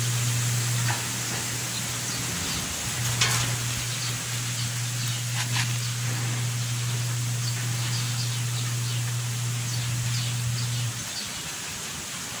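A steady low hum that drops out briefly about a second in, again near three seconds, and near the end, with faint high chirping and a few light clicks over it.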